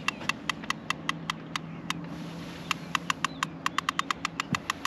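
Fishing reel clicking in sharp, rapid ticks while a big catfish is being played on a bent rod. There are two runs, about five ticks a second, then a short pause and a faster run.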